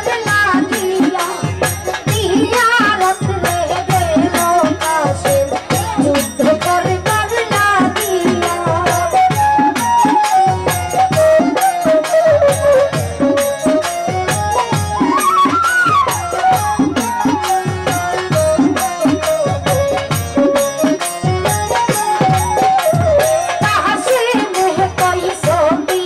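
Live Bengali jari folk song: a woman singing into a microphone over a folk band with a steady hand-drum beat and small percussion. Partway through she rests and the band carries the tune.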